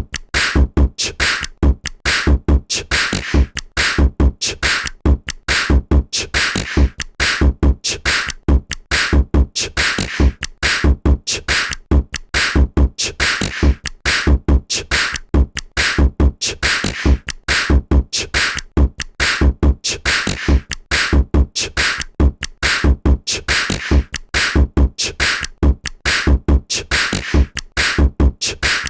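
CyanogenMod phone tone made of a fast, steady drum-machine-style beat with a heavy kick several times a second and sharp hits over it.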